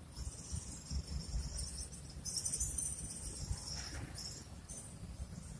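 Insects chirring in high-pitched stretches of a second or so, over a low rumble.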